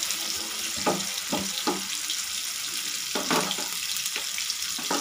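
Coated paneer cubes deep-frying in hot oil in a frying pan: a steady sizzle, with five short sharp clicks through it.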